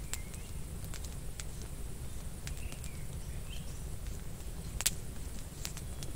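Wood fire crackling in an outdoor fire pit, with sharp irregular pops, the loudest just before the end. A bird chirps faintly a couple of times.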